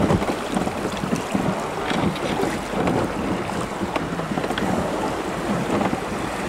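River water rushing and rippling past a wooden river raft, with wind buffeting the microphone; a steady, even noise.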